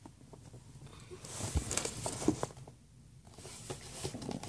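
Soft rustling and scattered small clicks of hands handling a doll and its packaging while pulling rubber bands off the doll's feet.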